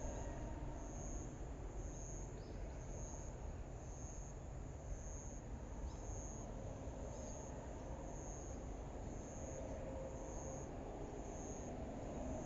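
Outdoor ambience: a high-pitched insect chirp repeating evenly about once a second over a low steady rumble, with a few faint bird chirps.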